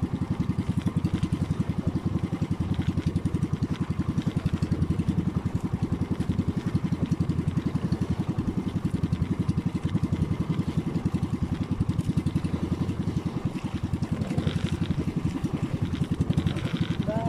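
Small engine of a motorised outrigger fishing boat running steadily with an even, fast firing beat.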